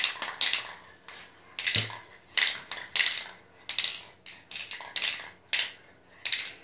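Aerosol spray paint can giving short, quick bursts of spray, about two a second, with a brief pause about a second in.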